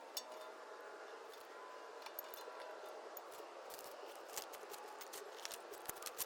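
Faint, irregular light clicks and taps over a quiet, steady background hum. The clicks come more often from about halfway through.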